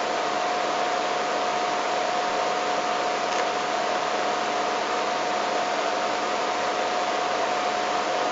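Steady hiss with a constant thin whine a little under 1 kHz, unchanging throughout: the background noise of the live broadcast's audio feed.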